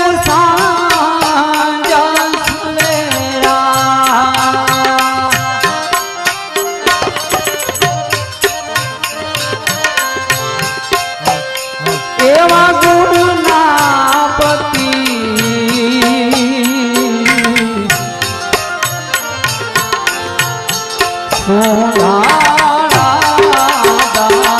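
Gujarati devotional bhajan: a singer's voice in long sung phrases over sustained harmonium tones and a steady hand-drum rhythm. Singing near the start, again from about twelve to eighteen seconds in, and near the end, with drum-and-harmonium passages between.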